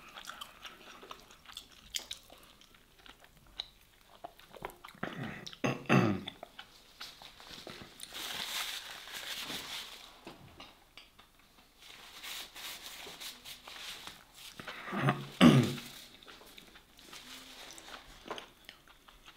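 Close-miked eating sounds: a person chewing and smacking on food, with two louder mouth noises about six seconds in and again about fifteen seconds in.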